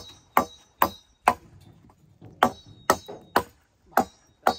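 Machete chopping a wooden pole: a steady run of sharp strikes about twice a second, with a short pause partway through. The pole is being cut to size for a bar across a cattle truck's stock rack.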